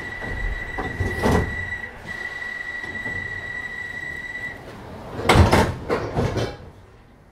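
London Underground 1972 Stock carriage: a steady high-pitched door warning tone sounds for about four seconds, with a brief break, then the sliding passenger doors close with a loud clatter about five seconds in.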